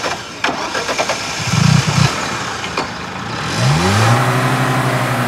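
A few sharp clicks, then a car engine: a loud low burst as it catches, and from about three and a half seconds in its pitch rises and settles into a steady run.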